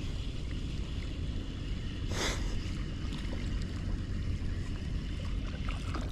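Water lapping around a small boat over a steady low rumble, with a short hissing burst about two seconds in.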